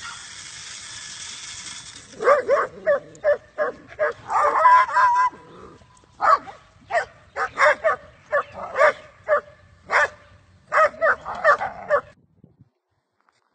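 Dog barking in quick runs of short barks, with one longer drawn-out bark about five seconds in. A steady hiss comes before the barking starts.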